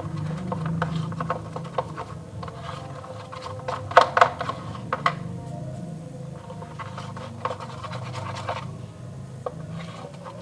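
A utensil stirring a foamy mixture of soapy water, glue and colouring in a bowl: irregular scraping and clicking against the bowl, with a few louder knocks about four seconds in, over a low steady hum.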